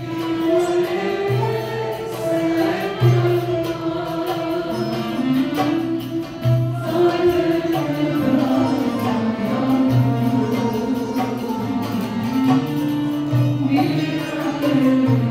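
Live Turkish classical (sanat) music ensemble playing, with kanun, oud and clarinet, and voices singing a slow melody over a regular low beat.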